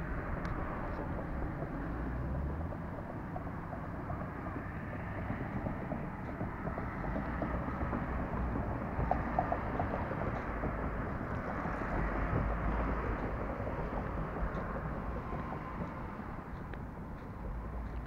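Wind buffeting an action camera's microphone outdoors: a steady rushing noise with an uneven low rumble that swells and fades, and no distinct events.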